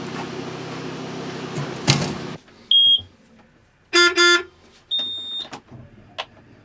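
Steady running of farm machinery that cuts off abruptly, followed by a short high beep, a quick double honk like a vehicle horn, and another short high beep.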